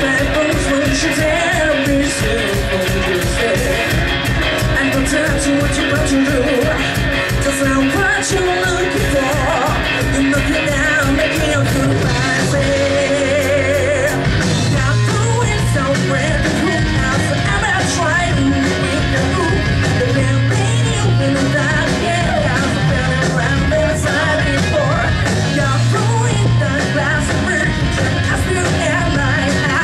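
Live rock band playing: a singer over electric guitar, bass guitar and drums, with a steady driving beat. The band changes section about halfway through, where the bass line steps to new notes.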